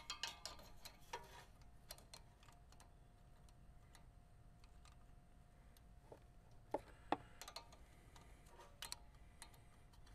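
Faint, scattered small metal clicks and taps of hands working a mower carburetor's throttle linkage and spring clip. There are several together at the start, two sharper clicks a little past the middle, and a few more near the end.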